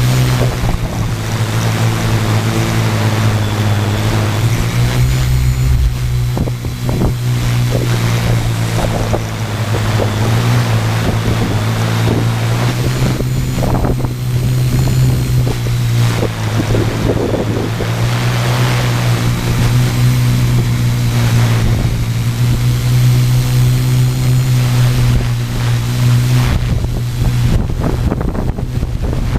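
Quadcopter's brushless motors and propellers humming steadily, the pitch stepping up and down every few seconds as the motors adjust, with wind rushing over the microphone.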